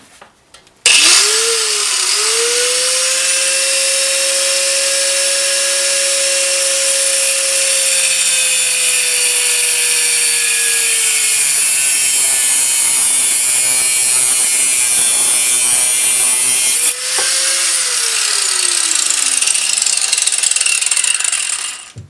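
Electric angle grinder spinning up about a second in and grinding into a steel sprocket clamped in a vise, a loud whine over a rasping hiss of metal. Its pitch sags as it bears down on the work. It briefly cuts out and restarts about three-quarters of the way through, its pitch sinks steadily under load, and it stops just before the end.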